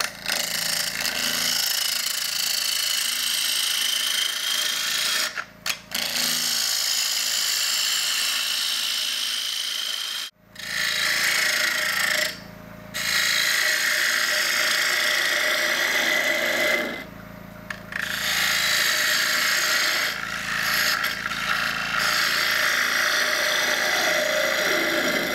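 Gouge taking rough cuts across the face of a wide wooden disc spinning on a wood lathe, in several long passes broken by short pauses as the tool comes off the wood.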